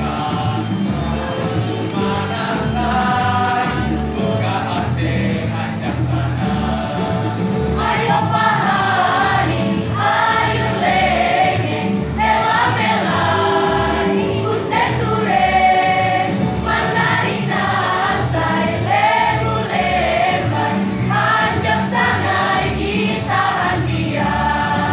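Mixed school choir singing in unison and harmony, accompanied by an electronic keyboard with a steady bass line.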